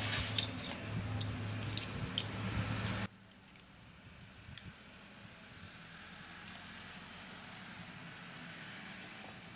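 Light clicks and taps from a screwdriver and plastic socket and plug parts being handled, over a steady low hum. The hum cuts off suddenly about three seconds in, leaving a faint hiss.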